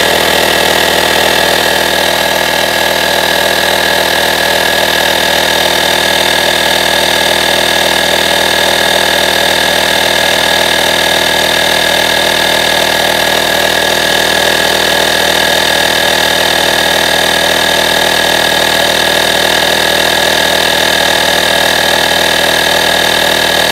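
AstroAI 12V portable tire inflator's electric compressor running steadily under load, pumping a car tire up toward its 36 PSI automatic cut-off.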